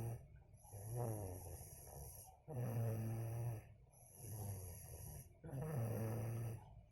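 A small child snoring in deep sleep: four snores of about a second each, one every second and a half or so, each with a low pitched buzz. She snores from exhaustion.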